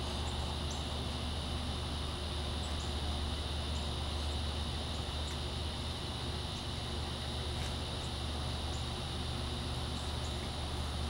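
Steady outdoor background: a constant low rumble under an even hiss with a steady high hum, and short, faint high chirps scattered throughout.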